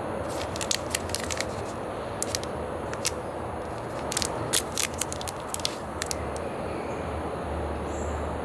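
Small plastic snack wrapper crinkling and tearing open in clusters of sharp crackles, which stop about six seconds in, over a steady low background hum.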